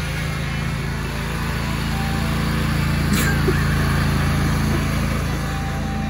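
Riding lawn mower engine running steadily as it drives around, getting a little louder in the middle as it comes close. A brief click about three seconds in.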